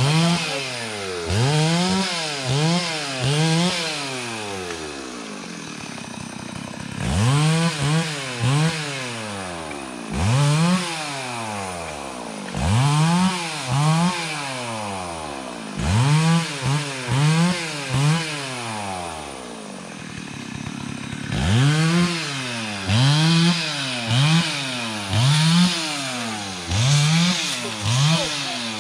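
Two-stroke chainsaw revved in short bursts, its pitch rising and falling several times in quick succession, then dropping back to a steady idle between groups of revs.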